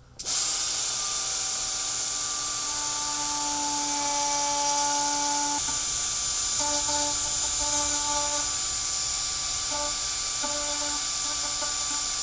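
Pneumatic-style die grinder with a pointed burr running at high speed, cutting a V-groove into a cracked polypropylene headlight tab. It starts abruptly, runs as a steady high whine, wavers and breaks up in the second half as the burr works the plastic, and cuts off near the end.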